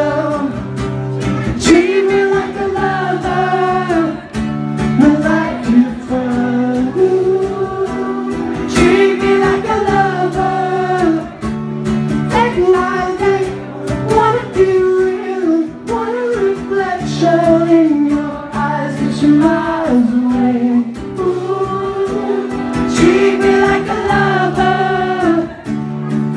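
A male voice singing a pop song over a strummed acoustic guitar, played live through a microphone.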